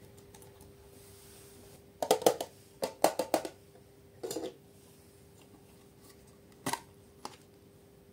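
Slime being worked by hand, giving short clusters of sharp clicks and pops about two, three and four seconds in, then two single clicks near the end.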